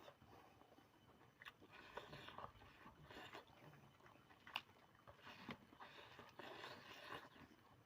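A person eating chicken curry: quiet chewing and biting, with a few sharp clicks.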